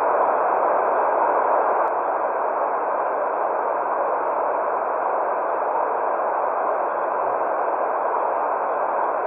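Steady white-noise hiss for infant sleep, muffled, with its energy in the middle range and no high treble. It dips slightly in level about two seconds in.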